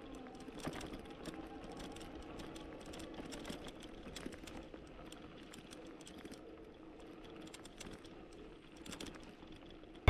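Gen3 Flex Hybrid e-bike riding over a rough, sandy dirt trail: faint, continual small rattles and clicks from the bike, over a low steady hum.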